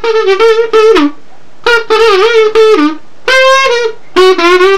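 Homemade kazoo buzzing out four short phrases of notes, mostly held on one pitch with quick dips and wobbles between them.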